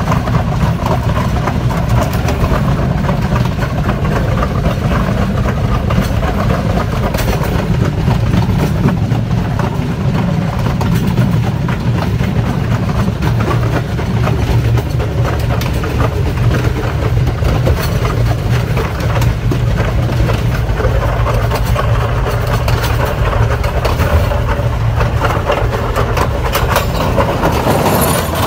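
Diesel train running along the line: a steady low engine and wheel rumble with scattered clacks of wheels over the rails, coming more often near the end.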